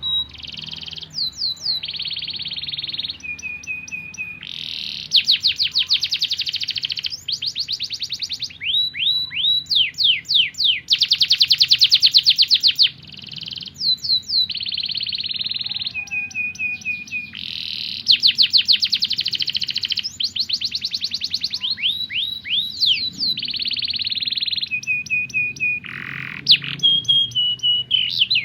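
Domestic canary singing a long, unbroken song. Phrases of rapid high trills and fast repeated sweeping notes alternate with short steady whistled notes.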